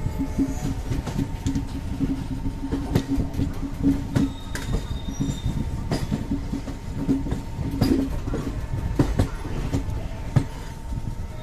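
Indian Railways express passenger coach heard from its open doorway as the train runs into a station: a steady rumble and hum of wheels on rail, with irregular sharp knocks as the wheels pass over rail joints and points.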